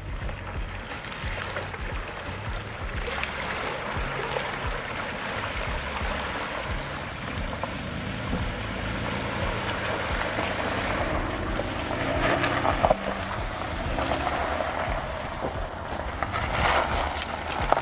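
Toyota RAV4 V6 SUV wading slowly through a muddy water crossing: water sloshing around the tyres with the engine running, and a couple of louder surges.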